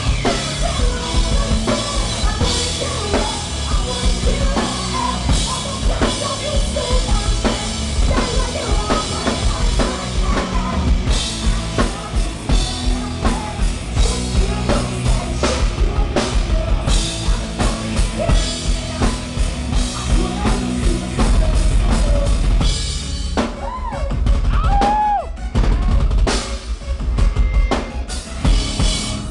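Rock band playing live and loud, led by a pounding drum kit with bass drum and snare hits over bass and distorted guitars.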